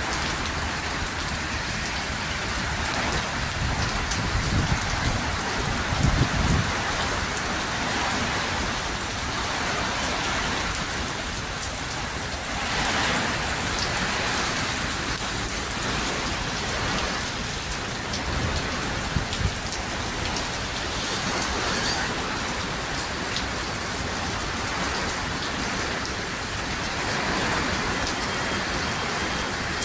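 Heavy rain and strong wind of a cyclonic storm make a steady rushing noise. The low rumble swells louder a few times, most around four to six seconds in.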